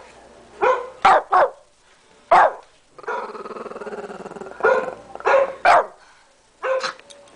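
Small shih tzu barking in short, sharp barks, about eight in two groups, with a low growl of about a second and a half between the groups.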